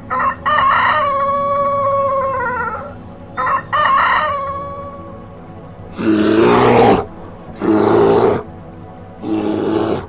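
Rooster crowing twice: each crow opens with short notes and ends in a long held note that falls away, the second fading out about five seconds in. From about six seconds in come three loud, rough, low calls from another animal, each under a second long and louder than the crows.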